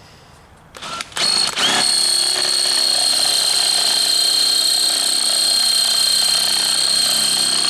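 Electric drill starting in short bursts, spinning up, then running steadily with a high-pitched whine as the bit works into a hard spring-steel plate.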